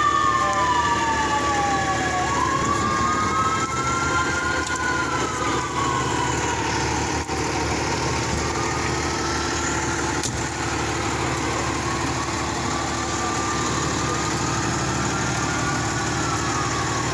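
Emergency-vehicle sirens wailing, the pitch slowly rising and falling every few seconds, at times two sirens at once, over the steady idle of a fire engine.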